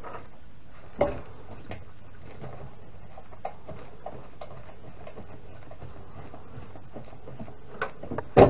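Scattered light clicks and taps from a metal electrical panel cover being fastened back in place with its screws, with one sharp clack near the end, the loudest sound.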